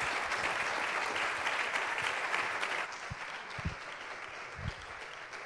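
Audience applauding; the clapping thins out and fades after about three seconds, with a few dull low thumps as it dies away.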